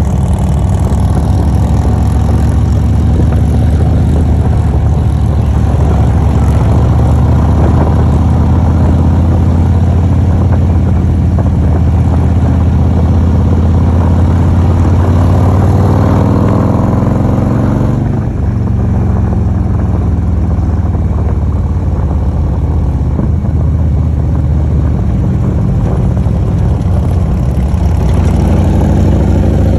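Motorcycle engine running under way with steady wind and road noise. Its pitch climbs over a few seconds a little past halfway, then drops back suddenly.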